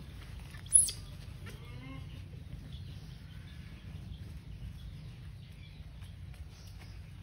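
One short, sharp, very high-pitched animal call about a second in, falling in pitch. Faint bird calls follow over a steady low rumble.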